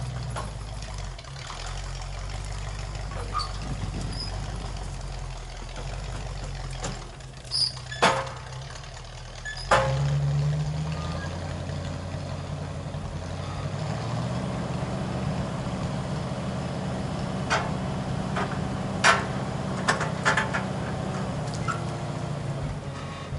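Paylogger skidder's engine running at a steady low speed, picking up speed about ten seconds in and running faster for the rest, with several sharp knocks along the way.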